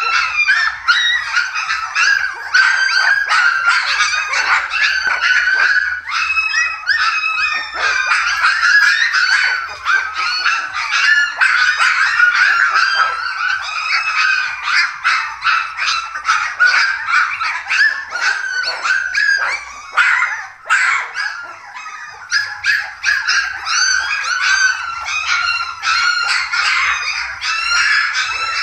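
A litter of three-week-old Dalmatian puppies whining and yelping all at once: a dense chorus of short, high-pitched calls that barely lets up, easing briefly about twenty seconds in.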